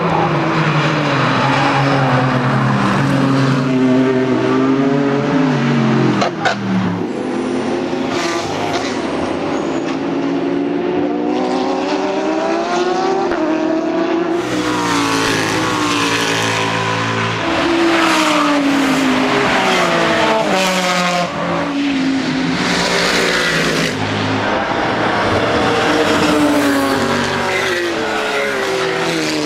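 Several race cars driving past one after another at racing speed. Their engine notes rise through the gears, breaking off at each upshift, and fall again as they lift or brake.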